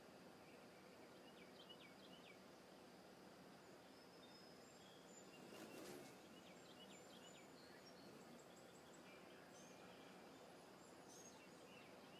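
Faint outdoor ambience with small birds giving short, scattered chirps and a steady faint high tone, broken by a brief soft rush of noise about six seconds in.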